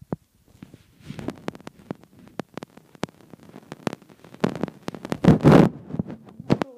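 Handling noise from a handheld phone: rustling and small knocks against the microphone, with a louder rustle a little after five seconds in.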